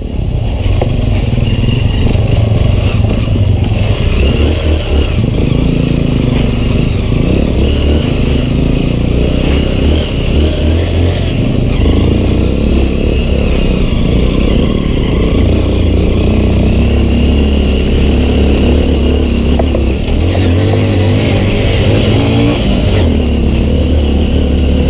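Honda CRF150L dirt bike's single-cylinder four-stroke engine running as it is ridden along a rough dirt trail. The engine note rises and falls with the throttle.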